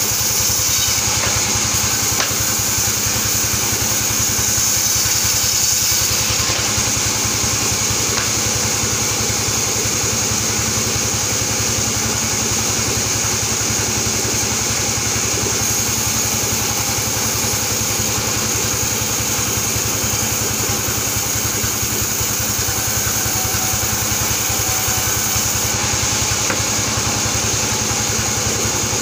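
Band sawmill running steadily, its blade cutting through albasia wood. A continuous high whine rides over the low, rapid drone of the saw's drive.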